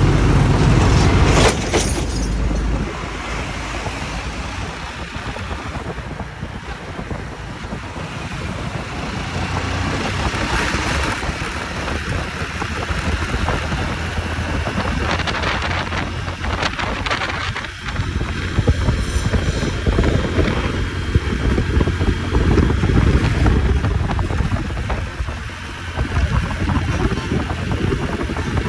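Wind rushing and buffeting over the microphone of a moving motorcycle, with a steady low rumble of engine and road underneath.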